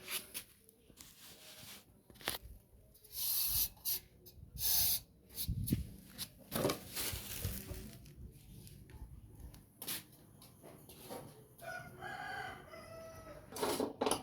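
Scattered knocks and clicks of things being handled, with two short hissing bursts a few seconds in. A chicken calls in the background near the end.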